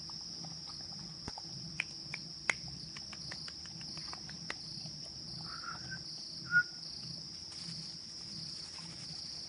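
Crickets chirping steadily, with a run of sharp crunching clicks in the first half as a Labrador chews in a plastic tub. A brief high squeak about two-thirds of the way through is the loudest sound.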